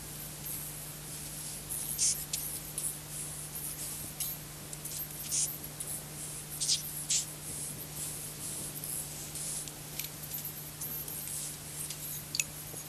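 Garbled audio of a scrambled analogue pay-TV broadcast recorded off air on VHS: a steady low hum under hiss, broken by irregular sharp crackling clicks.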